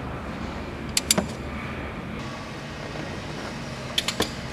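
A ratchet on the crankshaft pulley bolt clicking in two short groups of two or three, about three seconds apart, as the 2.4 L four-cylinder engine is turned over by hand toward top dead center. A steady low hum runs underneath.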